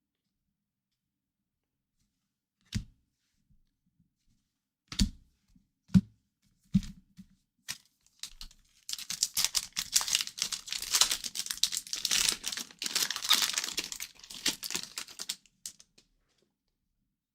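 A few light taps and knocks, then a card-pack wrapper is torn open and crinkled for several seconds: the wrapper of a pack of 2023-24 O-Pee-Chee hockey cards.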